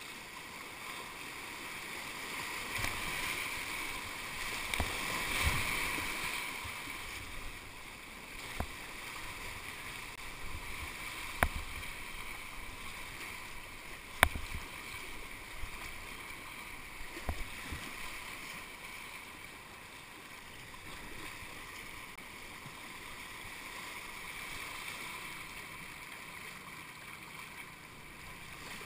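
Whitewater rapids rushing around a kayak, with paddle strokes splashing. Several sharp knocks stand out, two of them loudest near the middle.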